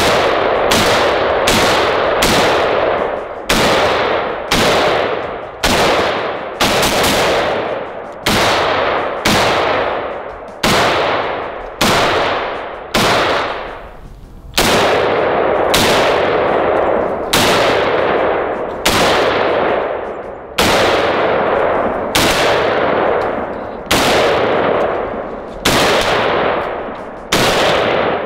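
DS Arms SA58 Para, a semi-automatic FAL-pattern rifle in 7.62x51/.308, fired in a steady string of single shots, roughly one to two a second, each with a long rolling echo. There is a short pause about halfway through.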